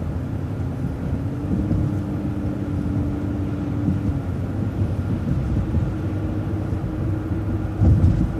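City bus driving along, heard from inside: a steady drone of engine and tyres with a hum that steps up in pitch about four seconds in. A thump comes near the end.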